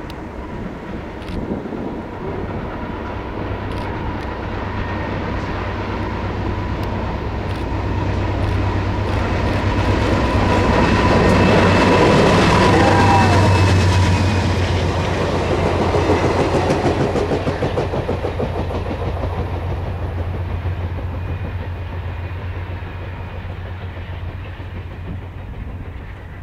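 Business train passing close by: a steady low rumble with wheels clattering over the rails, swelling to a peak about halfway and then fading away. Around the peak the conductor yells a short, falling 'woooo' as his car goes by.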